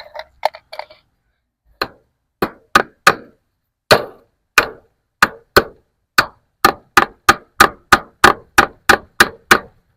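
Hammer driving fence staples into a wooden post to hold wire fencing: about twenty sharp strikes, starting about two seconds in and coming faster, about three a second, toward the end.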